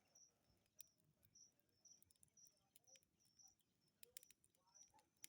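Near silence with a faint insect, likely a cricket, chirping in short high pulses about twice a second, and a few faint scattered clicks.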